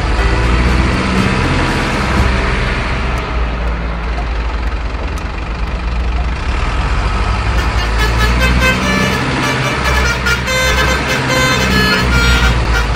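Heavy truck engine sound, running steadily, with horn toots.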